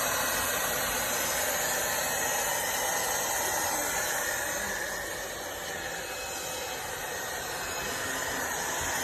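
Vacuum cleaner running with a steady whirring hiss, dipping slightly in level about halfway through.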